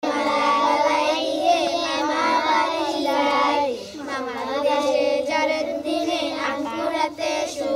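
Young girls' voices singing a Bengali verse in a sing-song tune with long held notes, with a brief pause about four seconds in.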